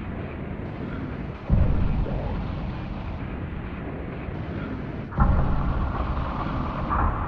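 Deep, rumbling, droning noise of the kind reported as a 'strange sound' coming from the sky. It swells suddenly about a second and a half in and again about five seconds in, and a higher groaning tone joins after the second swell.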